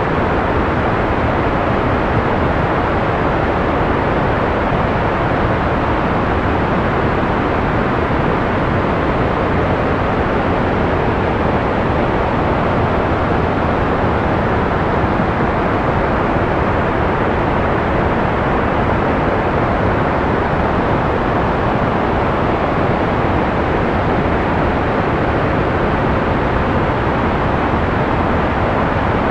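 Analog white noise: a steady, even hiss that never changes, fuller in the low and middle range than in the highs.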